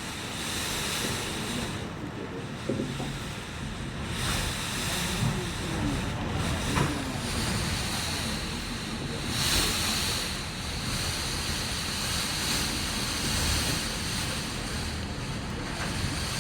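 Typhoon wind gusting hard, a continuous rushing noise that swells and eases with the gusts, with wind buffeting the microphone.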